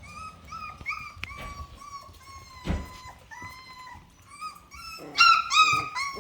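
Miniature Australian Shepherd puppies whining and crying in a string of short high-pitched whimpers, loudest about five seconds in, with a single dull thump about halfway through.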